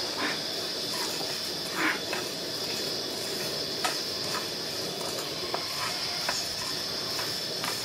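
Coriander seeds being stirred with a wooden spatula as they dry-roast in a nonstick pan on a portable gas stove: scattered light scrapes and rattles over a steady high hiss.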